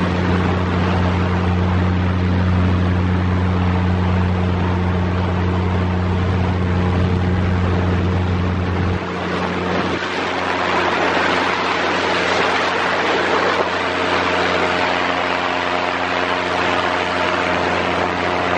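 Paramotor engine and propeller droning steadily in flight, with wind rushing over the microphone. About nine seconds in, the engine note changes, losing its deepest hum, and the rushing grows stronger.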